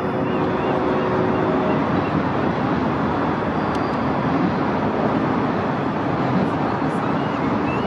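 Steady roar of city traffic heard from high above the streets, with a faint steady hum that fades out about two seconds in.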